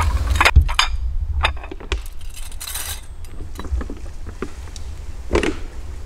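Plates and metal cutlery clinking and knocking as they are lifted out of a wicker picnic basket and set down, with a brief rustle near the middle, over a low steady rumble.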